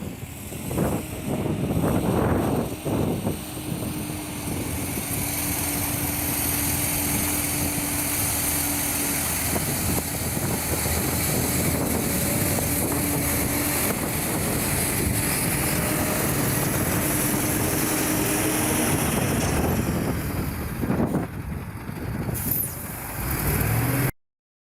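A motor vehicle's engine running steadily, with a faint even hum through the drone, cutting off abruptly near the end.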